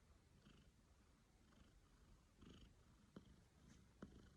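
Domestic cat purring faintly while being cuddled, the purr swelling and easing with each breath. Two faint clicks sound in the second half.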